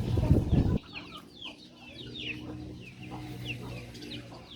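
Many birds calling in rapid, short chirps that fall in pitch. A loud low rumble on the microphone covers the first second.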